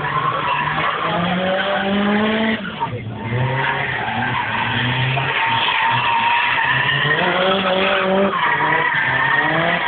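Nissan Silvia S14 drifting: the engine revs up and falls back again and again as the tyres squeal in long steady screeches, with a brief drop in engine note about three seconds in.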